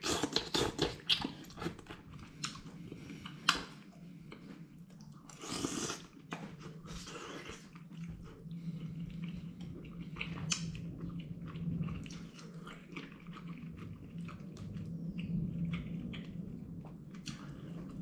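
A person chewing and biting into a meal of bathub, the Bhutanese flour-noodle stew topped with deep-fried chicken, with irregular short crunches and clicks.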